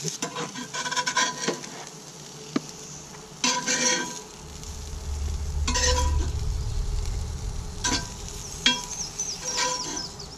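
Food sizzling in a pan while a metal utensil scrapes and clinks against it several times, each stroke ringing briefly. A low rumble comes in about four seconds in.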